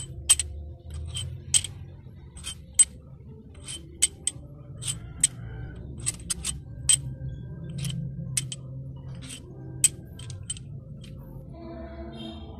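Long steel cylinder head bolts from an Isuzu 4HG1 diesel clinking against one another as they are handled in a gloved hand. It is a quick, irregular run of sharp metallic clicks that stops about two seconds before the end.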